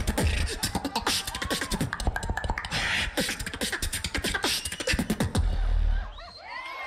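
Beatboxing: a fast run of sharp mouth clicks over deep bass kick sounds, breaking off about six seconds in.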